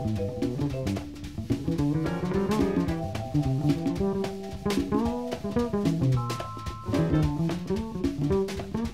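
Recorded jazz band playing: a drum kit's cymbals and drums strike steadily under shifting melodic lines from pitched instruments.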